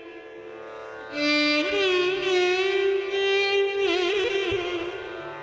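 Background Carnatic-style instrumental music: a bowed string melody with ornamented, wavering notes over a steady drone.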